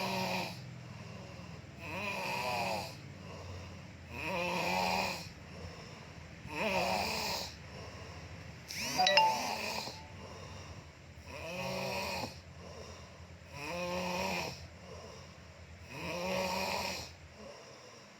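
A sleeping person snoring, eight snores about every two and a half seconds, a rough rattle that sounds like a Bajaj auto-rickshaw's exhaust. The snore about halfway through is the loudest, with a whistling edge.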